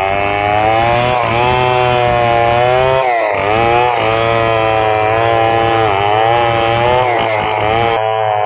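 Large 070 two-stroke chainsaw running at full throttle, ripping lengthwise through a log. Its engine note sags briefly under load a few times, most deeply about three seconds in, then picks back up.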